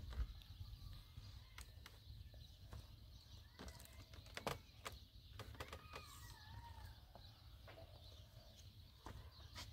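Faint outdoor ambience: scattered light knocks and clicks over a low rumble, with a few short calls from a bird or fowl, one falling in pitch about six seconds in.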